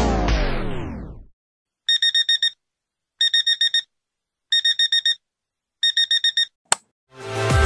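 Electronic background music slowing down and dropping in pitch until it stops about a second in. Then a digital alarm beeps in four bursts of about five quick high beeps each, waking for the second day's climb, followed by a single click and the music fading back in near the end.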